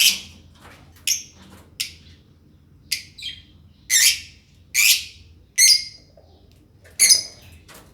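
Caged lovebirds giving short, shrill chirping calls, about one a second, nine in all.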